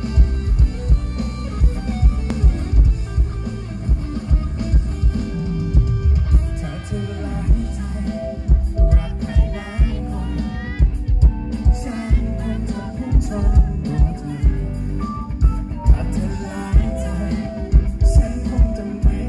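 Live pop-rock music played through a concert PA: a band with a steady kick-drum beat, and a male singer's vocals coming in partway through.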